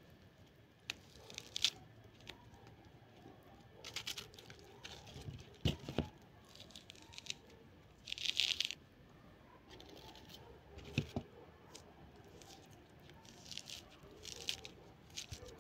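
A small knife cutting and peeling an orange on a plastic plate: scattered short rasps and tears of peel, with a few sharp clicks.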